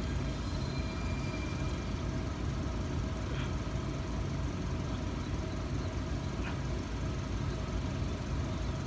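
Freight train backing up slowly: a steady low rumble.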